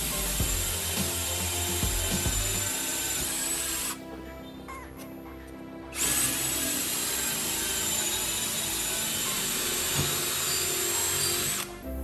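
A small power tool running with a steady high whine, stopping for about two seconds in the middle and then running again, with background music underneath.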